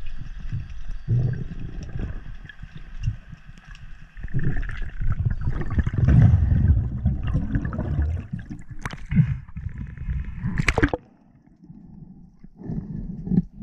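A strange ringing heard underwater, several steady high tones together, fading out after about four seconds. Under it and louder is the low sloshing and rushing of water against the camera as the diver moves. Two sharp clicks come near the end.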